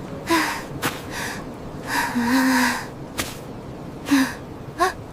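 Cartoon character vocal sounds: a series of breathy gasps and pants, one longer with a low hum under it, with a few sharp clicks and a short rising squeak near the end.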